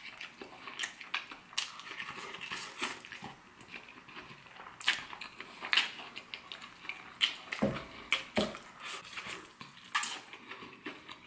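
Mouth-close eating of crispy battered fried chicken: irregular crackling crunches of the coating as it is bitten and chewed, with a couple of heavier crunches a little past the middle.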